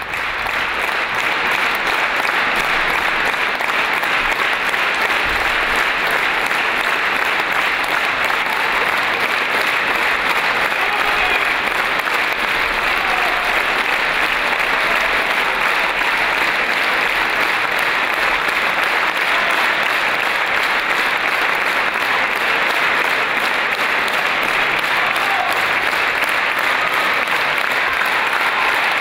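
Large concert-hall audience applauding steadily, a dense, unbroken wash of clapping.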